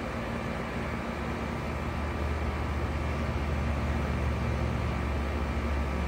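Goodman GSZ14 4-ton heat pump outdoor unit running in cooling mode: the condenser fan's steady whoosh over the hum of its Copeland scroll compressor. The low hum grows a little louder about two seconds in.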